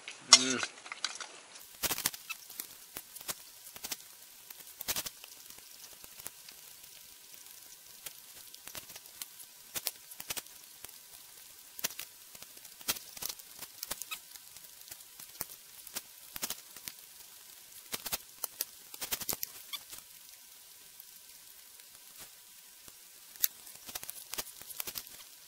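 A person eating a beef bowl from a metal pot with chopsticks: irregular clicks and scrapes of the chopsticks against the pot, with chewing between them.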